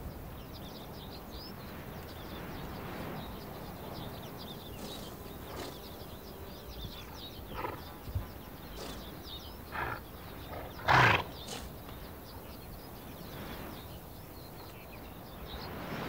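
Przewalski's horses in a close herd on open grassland: a steady outdoor background with a few small sounds from the animals, and one short, loud sound from a horse about eleven seconds in.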